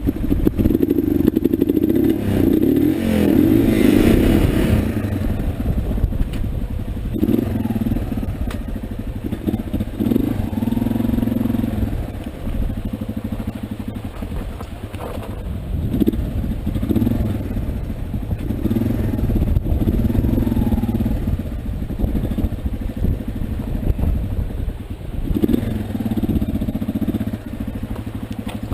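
Motorcycle engine running under load, its note swelling and falling back in repeated bursts of throttle, with some clatter.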